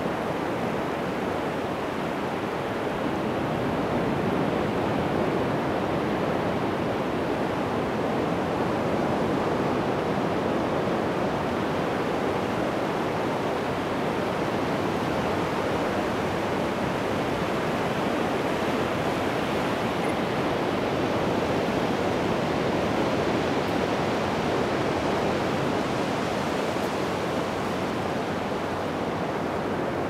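Atlantic Ocean surf breaking and washing up the beach, a steady rushing that swells gently now and then.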